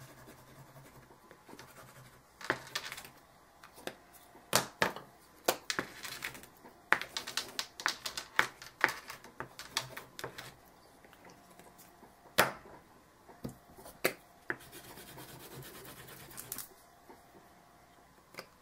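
Faber-Castell Gelatos crayon sticks scribbled across a chipboard board: irregular scratchy strokes with sharp clicks, starting a couple of seconds in, then a steadier rub for a couple of seconds near the end.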